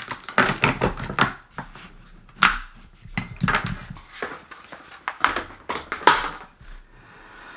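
A run of irregular clicks, knocks and scrapes from hard objects being handled and set down, with the sharpest knocks about two and a half and six seconds in.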